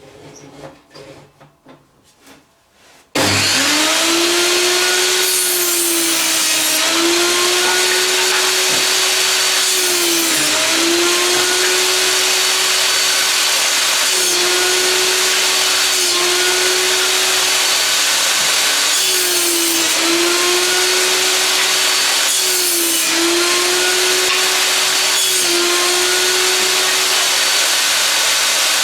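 A few light knocks, then an Einhell table saw switches on about three seconds in and runs loud and steady. Its motor tone sags briefly every few seconds as the blade cuts through wooden boards, then recovers.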